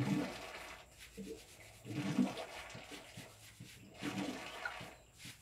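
Hands scrubbing wet, shampoo-lathered hair: wet rubbing and splashing noises that come in surges about every two seconds.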